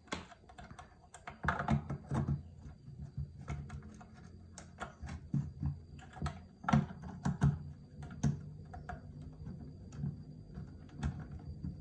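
Screwdriver clicking and scraping on the screw terminals of an inverter's terminal block as supply leads are fastened: a run of irregular small clicks and taps.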